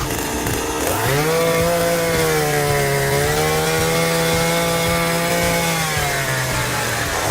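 Chainsaw revving up to full speed about a second in and running under load as it cuts, its pitch sagging briefly in the middle. It eases off and falls in pitch near the end.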